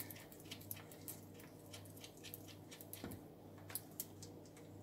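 Faint, scattered small clicks and ticks of plastic tubing and a plastic compression nut being handled and screwed tight by hand on an under-sink water purifier fitting, over a steady low hum.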